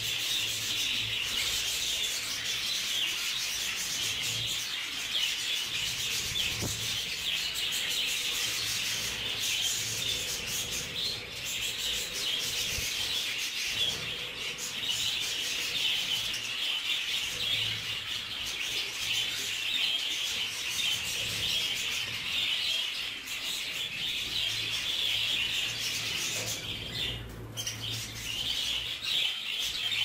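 Budgerigars chattering: a continuous dense twittering of many birds together.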